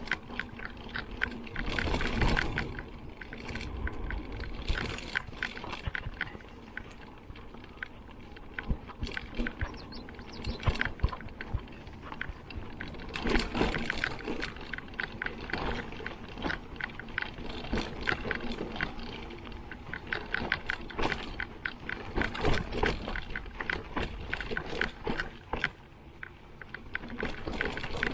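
Giant Trance X 29 mountain bike ridden over a dirt singletrack: tyres rumbling on the trail under a constant irregular rattle and clatter of clicks from the bike as it takes the bumps, louder in a few rougher stretches.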